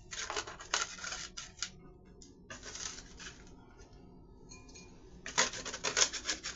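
Close crunching of crisp homemade chips being chewed, in irregular runs of sharp crunches. A dense run comes first, then a quieter stretch with a single crunch in the middle, then a loud run of crunches near the end.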